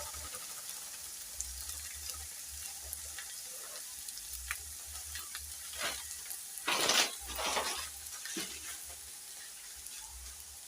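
Food frying in a pan with a steady sizzle and a few small clicks. About seven seconds in come two louder, short rustling swishes.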